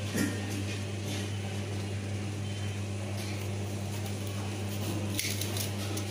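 A steady low hum runs throughout, under quiet knife-on-potato sounds as a kitchen knife slices a peeled potato on a stainless steel plate. A faint tap of the blade is heard a little after five seconds in.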